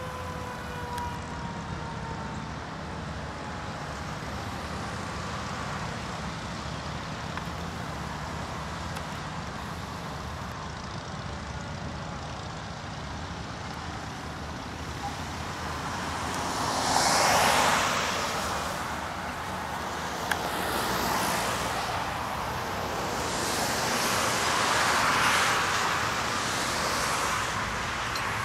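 Steady highway traffic with cars swishing past, the loudest passes about seventeen seconds in and again around twenty-five seconds. In the first couple of seconds a fire engine's siren winds down in a falling tone and fades out.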